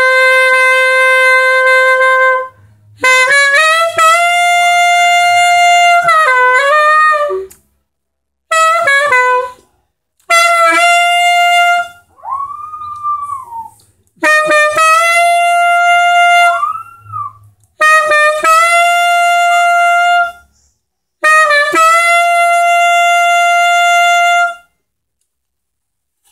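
Alto saxophone playing long held notes in phrases with short breaks, while a small pinscher dog howls along to the high notes. Its brief rising-and-falling howls are heard most plainly about halfway through, when the sax pauses, and again a few seconds later over the sax.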